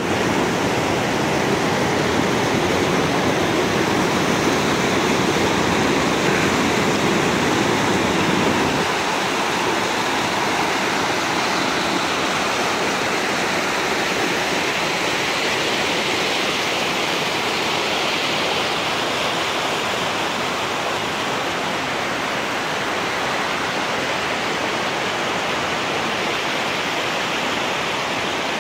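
Steady rushing noise of running water, with a deeper rumble under it for the first nine seconds or so that then drops away suddenly.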